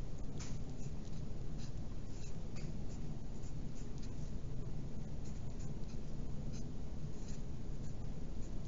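Wooden pencil scratching on paper while small letters and lines are written, in short, irregular strokes over a steady low background hum.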